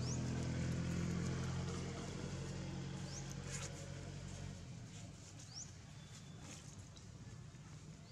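Low engine hum that fades away over the first four or five seconds, with a few short high rising squeaks.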